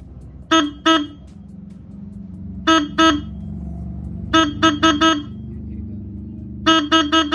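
A Roots Megasonic motorcycle electric horn sounding in short test toots with a buzzy tone: two, then two, then two quick runs of four. The horn has just been serviced and its sound is being set at the adjustment screw, after the mechanic called its note very bad.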